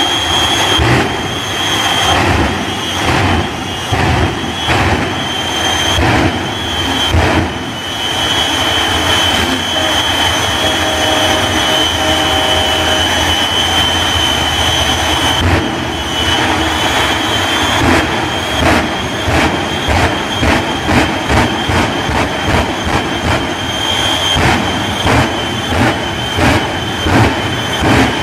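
Jet-powered show truck's jet engine running with a steady high whine under a heavy roar, as its stacks fire bursts of flame. In the second half the bursts come as a rapid series of loud pops, about one or two a second.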